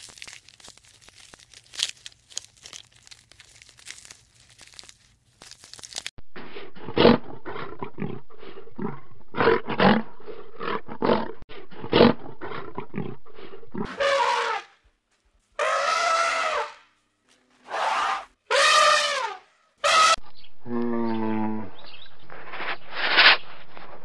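Faint crackling at first, then lions growling in a run of short rough growls, followed by several louder drawn-out roaring calls that rise and fall in pitch.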